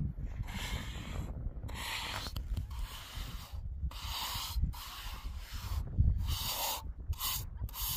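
Hand trowel scraping across wet concrete in repeated strokes, about one a second, coming shorter and quicker near the end, as a fresh layer is smoothed.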